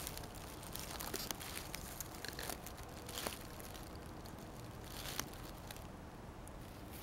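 Faint rustling and crackling of dry grass close to the microphone, with scattered small clicks.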